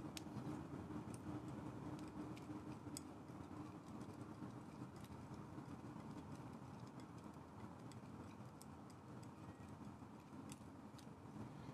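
Low, steady room hum with faint, irregular light clicks and taps of a palette knife mixing oil paint on a palette.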